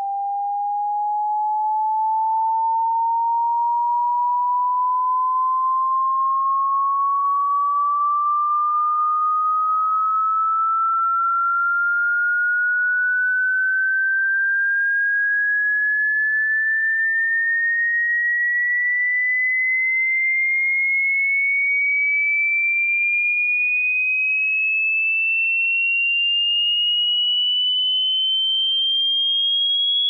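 Anti-bark sound meant to stop a dog barking: a single pure electronic tone gliding slowly and steadily upward in pitch, from a mid whistle to a high, thin whine. It swells to full loudness in the first couple of seconds.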